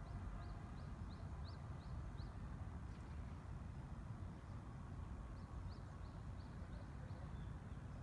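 A small songbird giving two quick runs of short high chirps, about three a second, over a steady low background rumble.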